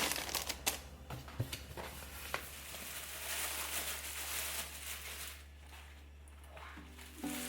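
Quiet indoor handling sounds: scattered light clicks and taps for the first couple of seconds, then a soft hiss lasting a couple of seconds. Plucked-string background music comes back in near the end.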